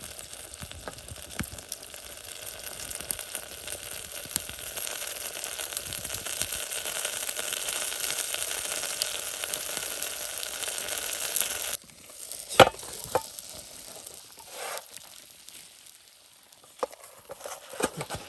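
Pizza sizzling and crackling as it cooks over a campfire: a dense, steady crackle with fine ticks. About two-thirds of the way in it cuts off suddenly, leaving a few scattered clicks and knocks.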